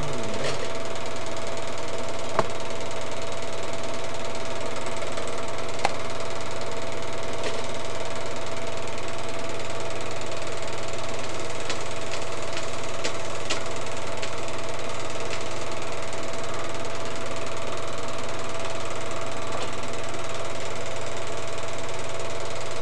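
Film projector running: a steady mechanical whir and chatter over a constant hum, with a few faint clicks.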